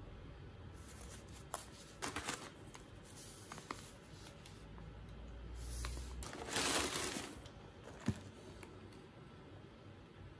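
Rustling and crinkling of food pouches and tissue paper being handled in a cardboard box, with a few light taps; the longest, loudest rustle comes about six and a half seconds in.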